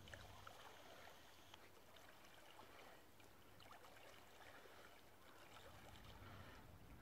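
Near silence: faint lapping and trickling of lake water, with small scattered ticks.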